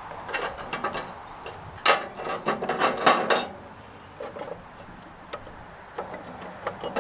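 Sticks of fatwood clacking and clattering as they are handled and set into charcoal: a run of sharp wooden knocks in the first half, loudest about two and three seconds in, then a few scattered quieter clicks.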